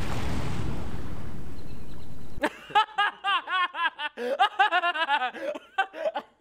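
A Starship prototype exploding, heard as a steady rumbling roar that cuts off sharply about two and a half seconds in. High-pitched laughter in quick repeated bursts follows.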